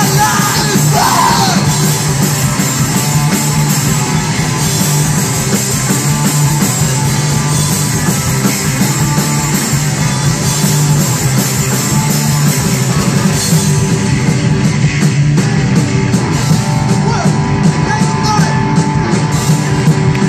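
Live rock band playing loud: two electric guitars, bass guitar and drum kit, with yelled singing over them near the start and again near the end.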